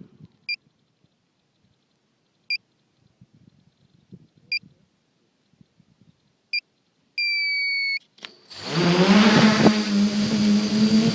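Four short electronic beeps, evenly spaced about two seconds apart, then one longer beep that sags slightly in pitch. Near the end the tricopter's electric motors and propellers spin up, rising in pitch and then running steadily.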